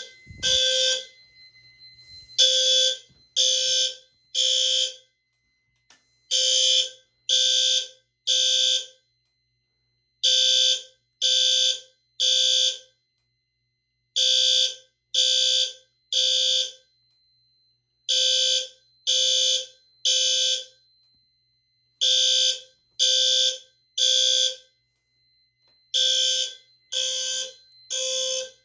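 Fire alarm horns sounding the temporal-3 evacuation pattern: three half-second blasts of a buzzy tone, then a pause, repeating about every four seconds. This is the sign of a fire alarm system in general alarm during a test.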